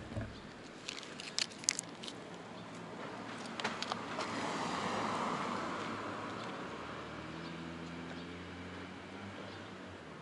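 A car passing along the street, its noise swelling about halfway through and fading, with a low steady engine note later on. A few small clicks come near the start.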